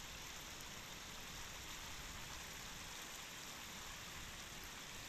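Faint, steady rush of a small river rapid flowing into a shallow pool.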